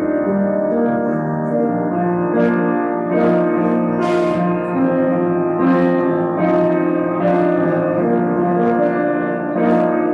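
Solo piano playing a slow instrumental piece, with held chords under a melody.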